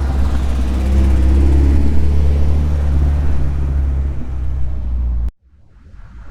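Old car engine recording run through a phaser effect: a steady, deep engine rumble with tones that slowly sweep up and down, making a sci-fi vehicle sound. It cuts off suddenly about five seconds in, and a faint sound then rises.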